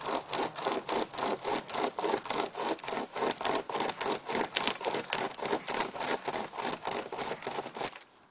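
UST SaberCut pocket chainsaw being pulled back and forth through a fallen juniper log, its chain teeth rasping through the wood in quick even strokes, about three or four a second. The strokes stop near the end.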